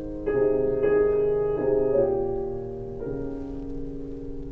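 A Yamaha grand piano playing a short phrase of chords, a new chord struck every half second or so, with the last one, about three seconds in, left to ring and fade.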